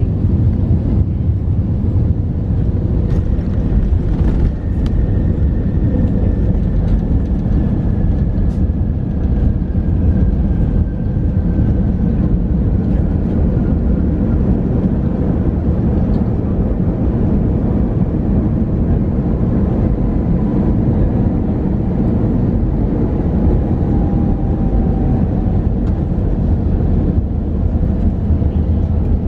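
Inside the cabin of an Airbus A320 touching down and slowing on the runway: a loud, steady, deep rumble of engines and rolling wheels, with a few light knocks in the first seconds and a faint whine that falls slowly in pitch as the aircraft decelerates.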